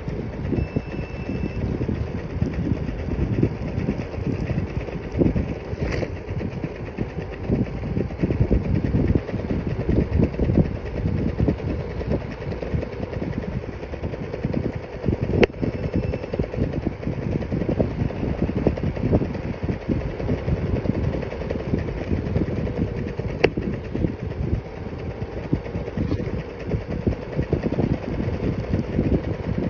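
Stand-up scooter riding along an asphalt road: a continuous rough rolling rumble from the wheels on the road surface, with a steady hum running underneath. A few sharp knocks from bumps punctuate it.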